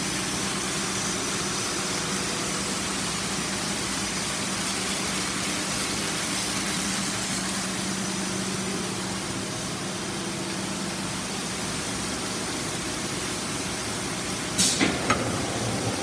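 GOLDFIST rug washing machine running: a steady hiss of its water sprays and brushes over a low hum from its electric gear motors. Near the end, a quick run of three sharp knocks.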